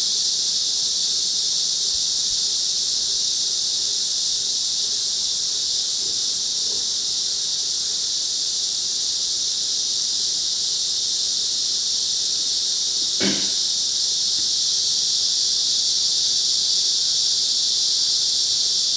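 Steady, loud, high-pitched insect chorus, a continuous shrill hiss with no pauses, with a single short knock about 13 seconds in.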